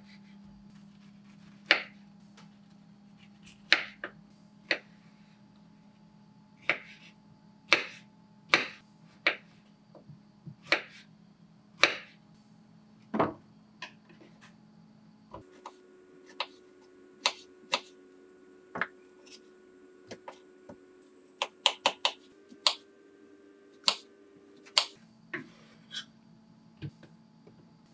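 Kitchen knife cutting pineapple on a wooden cutting board: sharp, irregular knocks as the blade goes through the fruit onto the board, one or two a second, with a quick run of knocks a little after twenty seconds in. A faint steady hum lies underneath.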